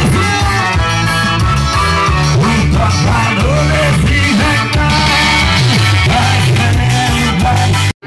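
Loud dance music with a singer and a steady heavy bass, played through a party sound system, cutting off abruptly just before the end.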